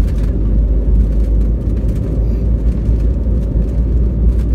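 Steady low rumble of a jet airliner rolling along the runway, engine and wheel noise heard from inside the cabin.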